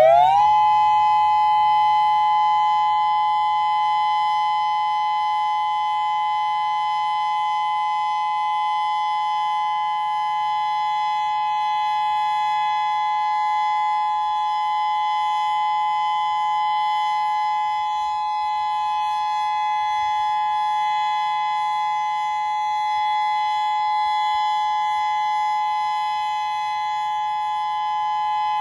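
Federal Signal Modulator II 6024B electronic outdoor warning siren sounding a loud steady alert tone: two held pitches sounding together after a quick rise in pitch at the start, with no wavering.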